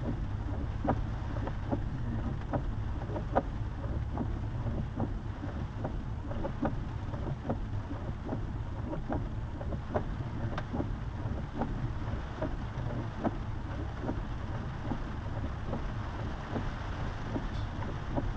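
Steady low road and engine rumble inside a lifted Jeep driving on a wet road, with a short regular tick repeating a little more than once a second.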